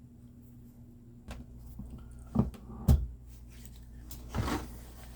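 Light clicks and knocks from a small diecast model car being handled and set down, three sharp ones in the first three seconds, then a brief rustle about four and a half seconds in, over a steady low hum.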